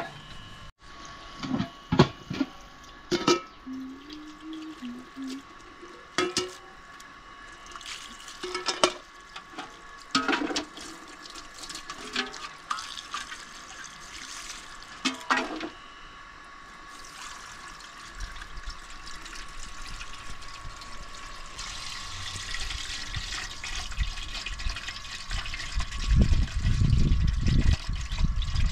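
Water running and splashing, with scattered sharp knocks and clatters in the first half; the rush of water grows louder and heavier near the end.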